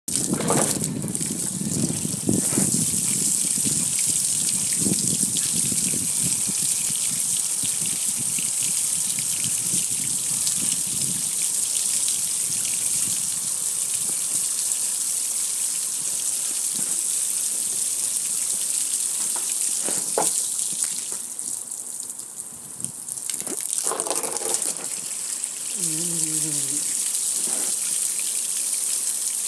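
Water from a hose spraying and splashing onto a black gas grill, pouring down its lid and control panel in a steady gushing hiss. The spray eases off for a moment about two-thirds of the way through, then comes back.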